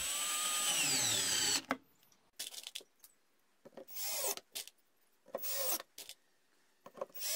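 Cordless drill driving countersunk screws into wood. One run of about two seconds with a whine that drops in pitch as the screw bites, then four short bursts as further screws are driven home.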